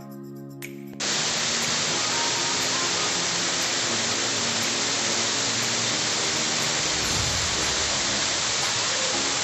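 Music cuts off about a second in, replaced by the steady rush of a waterfall, loud and even.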